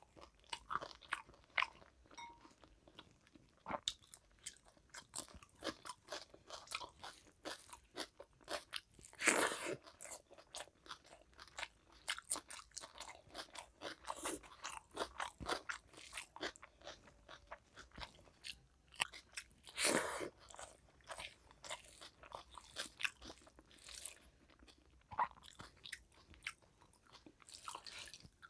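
Close-miked chewing and crunching of a mouthful of rice and curry eaten by hand, with irregular crunches and wet mouth clicks. Louder crunches come about 9 and 20 seconds in.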